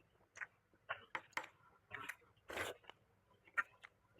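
Close-up eating sounds: a person chewing food with wet mouth clicks and smacks at an irregular pace, and one longer crunchy or slurping burst about two and a half seconds in.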